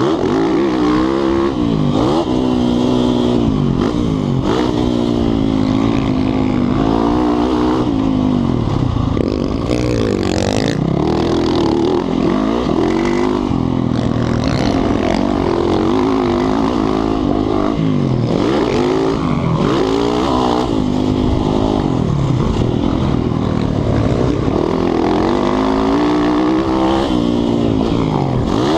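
Dirt bike engine at full race pace, revving up and dropping back over and over as the throttle is worked around the track.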